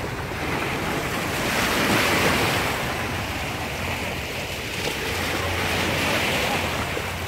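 Small sea waves washing onto a sandy shore, the wash swelling and ebbing twice, with wind buffeting the microphone.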